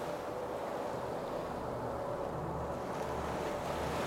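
Steady rushing of wind and water with a low, even engine-like hum underneath.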